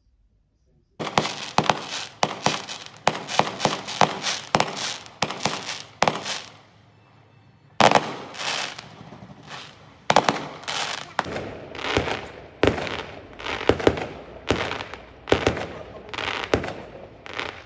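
Aerial fireworks going off, starting about a second in: quick bangs with crackling, then a short lull halfway through. After that comes a loud bang and a run of separate bangs, about one or two a second.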